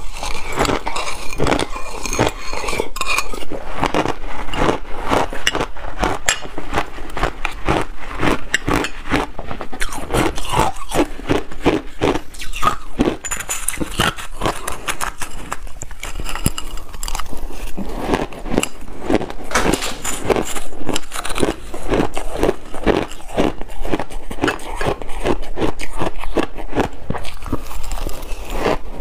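Shaved ice being eaten close to a clip-on microphone: a metal spoon scrapes and clinks against glass bowls, and frozen shaved ice crunches and crackles as it is bitten and chewed, in a dense, rapid run of crisp clicks.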